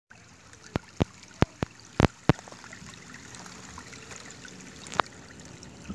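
Sewage trickling steadily out of a broken sewer line, a faint running-water sound. Several sharp clicks stand out over it in the first two and a half seconds, with one more about five seconds in.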